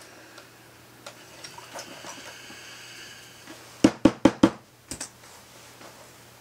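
Wooden tailor's clapper knocking down on a freshly steamed denim hem on a padded ironing board: four quick knocks about four seconds in, then a lighter double knock a second later.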